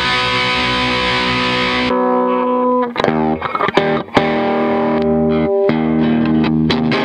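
Distorted electric guitar played through a freshly serviced Yamaha DG-60 112 guitar combo amplifier, close-miked. A bright chord rings for about two seconds, then comes a quick run of short notes, then held notes.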